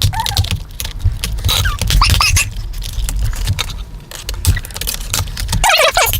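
Plastic laptop parts being handled and pried apart: quick, irregular clicks and rattles with a few short squeaks, as the keyboard is worked loose from the case.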